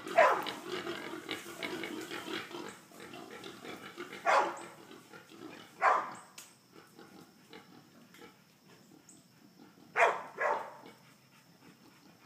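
A hog dog barks in short, loud single barks a few seconds apart at a group of wild hogs it has bayed up. Hog calls are mixed in over the first two seconds.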